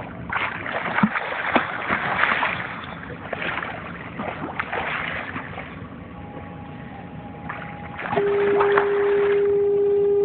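Hooked cobia thrashing and splashing at the water's surface beside the boat, in irregular bursts over the first six seconds. About eight seconds in, a loud steady tone comes in and cuts off suddenly.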